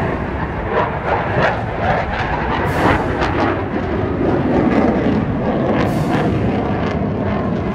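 F/A-18 Super Hornet twin-engine jet making a loud, steady roar with rapid crackles during its display pass.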